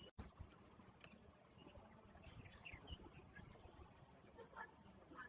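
Faint ambience: a steady, high-pitched insect drone, with scattered faint short sounds.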